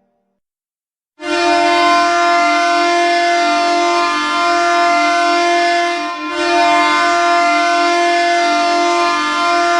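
NHL goal horn blasting: one long, steady low horn tone that starts about a second in, dips briefly around six seconds in, then carries on.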